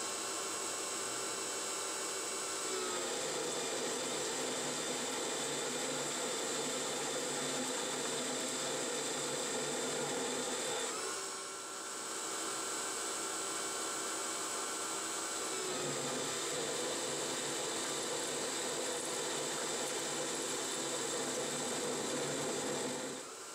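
Benchtop 9x20 metal lathe turning steel with a carbide insert, its spindle drive running steadily with cutting noise. About three seconds in the pitch drops a little as the tool takes the cut and loads the spindle. After a short break halfway, a second, deeper cut makes the pitch drop again, with the spindle slowing from 700 to just under 600 rpm.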